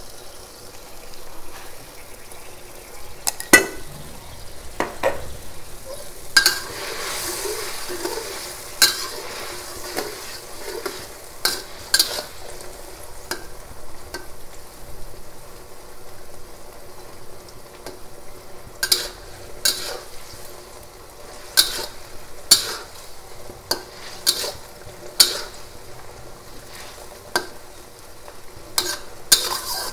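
Metal spatula scraping and knocking irregularly against a metal wok as eggplant pieces are stirred, over a steady faint sizzle of the food cooking in the wok.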